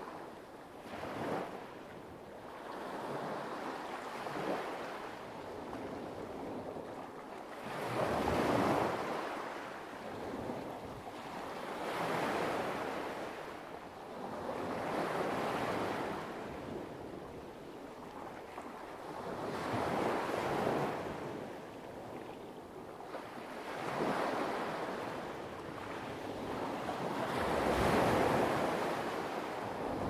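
Light waves washing onto a pebble beach, each wash swelling and fading every three to four seconds.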